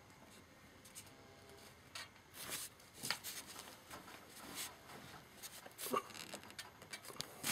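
Faint rustling, scraping and small knocks of hands handling and pushing on PVC drain pipe and fittings, in irregular bursts with a busier stretch about two and a half to three seconds in.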